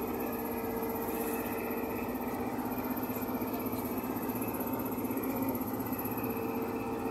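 Ship's engine running at a steady drone, one unchanging hum with no rise or fall in pitch.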